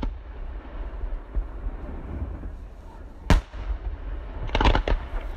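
Fireworks display: one sharp bang about three seconds in, then a quick cluster of three or four bangs near the end, over a steady low rumble.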